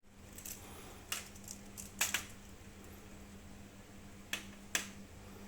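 A series of sharp clicks and taps, clustered in the first two seconds and again twice near the end, over a steady low hum.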